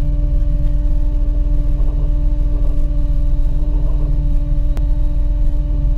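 A Sealegs 7.7 m amphibious boat's engine running steadily as the craft moves on its wheels over land, with a steady whining hum over a low throb. There is a single click about five seconds in.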